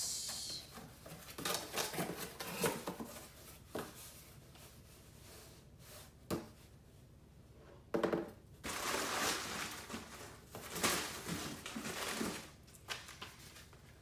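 Packaging being handled: irregular bursts of plastic and paper rustling, with a few short knocks as a cardboard carton and a white product box are moved about.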